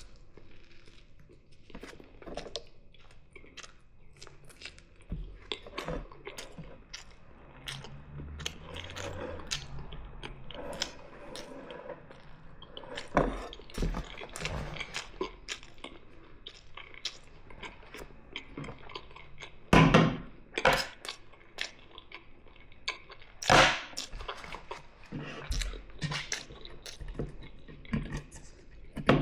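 Close-miked chewing and eating sounds of a toothless eater gumming a meal of mici, fried eggs and fries: wet mouth clicks throughout, with a few louder sharp knocks about two-thirds of the way through.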